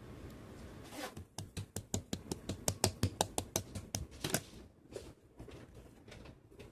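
A quick run of sharp clicks and taps, about four or five a second, loudest from about one second in to four and a half seconds, then sparser and softer.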